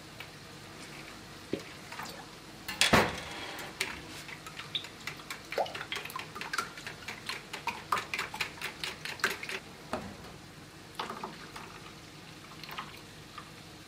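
A utensil whisking eggs in a plastic mixing bowl: a loud knock about three seconds in, then quick clicking strokes against the bowl for about six seconds that stop about ten seconds in.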